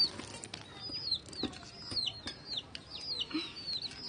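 Young chickens peeping over and over, short high falling cheeps about three a second, with scattered light clicks and rustling.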